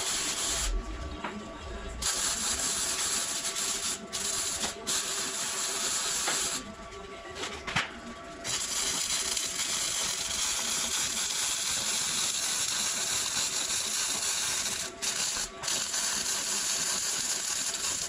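Electric arc welding on steel, the arc giving a steady crackling hiss in several runs. It breaks off briefly a few times and stops for about two seconds near the middle, then one long run of about six seconds.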